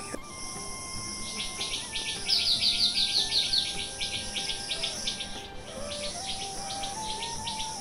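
Insects droning steadily, with a fast run of short repeated chirps starting about a second and a half in.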